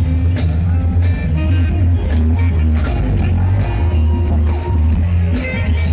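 Live funk rock band playing loudly, a heavy electric bass line out front over a steady drum beat.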